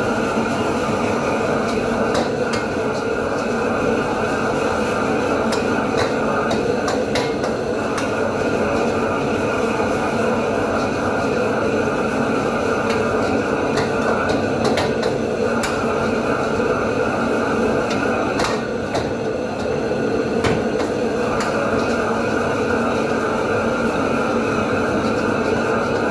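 Steady rushing noise of a high-flame gas wok burner and the kitchen exhaust hood, with scattered clanks and scrapes of metal utensils against a wok during stir-frying.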